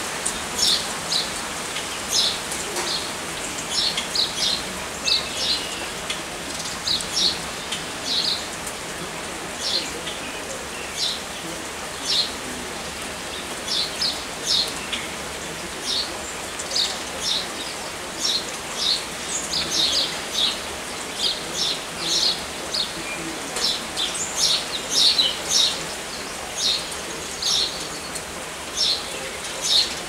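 Steady rain falling, with a small bird giving short, high chirps over and over, about one or two a second.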